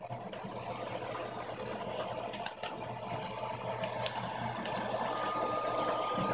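ShopBot CNC router's axis motors running as the gantry drives a drag knife through cardboard: a steady machine hum that starts at once, with a faint tick or two. A steady high whine joins about five seconds in.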